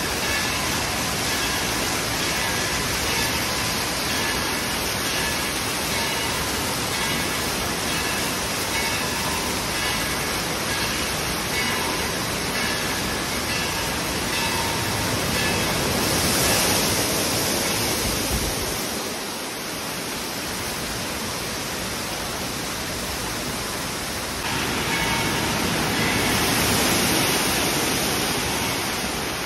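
Water rushing and splashing from fountain jets, pouring spouts and buckets of a water park play structure, a steady wash of noise. It swells louder twice, the second time near the end as a giant tipping bucket dumps a torrent onto the deck.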